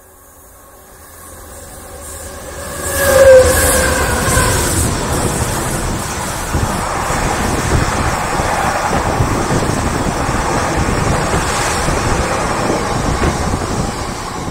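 A freight train of stone hopper wagons passing at speed. It grows louder as it approaches, the locomotive goes by about three seconds in with its tones dropping in pitch, then the wagon wheels rumble and clatter steadily over the rails.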